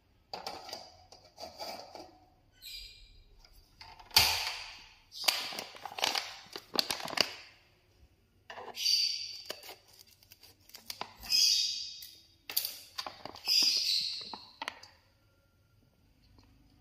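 Light clatter of an aluminium wok being set on a portable gas stove, then crinkling and rustling of a plastic cooking-oil pouch being handled and opened, in a series of short, sharp bursts.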